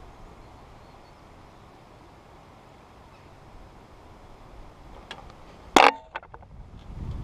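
A carbon fishing pole being handled: a light click, then one loud sharp knock with a short hollow ring and a few lighter clicks, near the end. Steady low wind noise on the microphone underneath, growing near the end.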